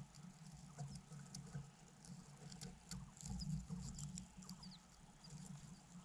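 Soft rustling, scratching and light crackling of dry grass nest material as an adult bird shuffles and settles onto its ground nest, with a few faint, short high chirps.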